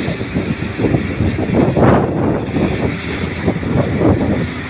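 Heavy diesel engine running, an uneven rumble mixed with wind gusting on the microphone.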